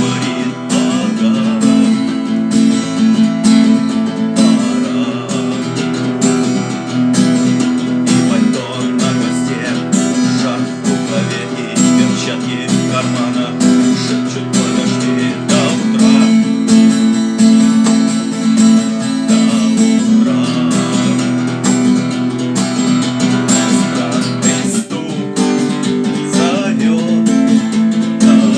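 Acoustic guitar being strummed in a steady rhythm.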